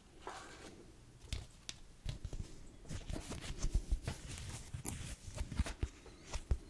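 Close-miked handling of a small leather luggage tag: fingers rubbing, flexing and tapping the leather, an irregular scatter of soft clicks, rustles and low thumps that starts about a second in and grows busier.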